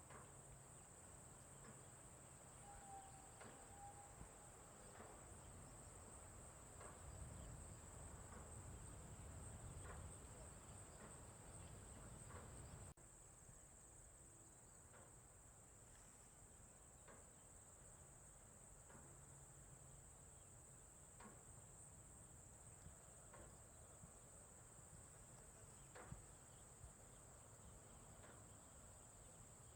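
Faint, steady high-pitched chirring of crickets, with scattered soft ticks and a short whistled note about three seconds in. A low rumble underneath cuts off abruptly about thirteen seconds in.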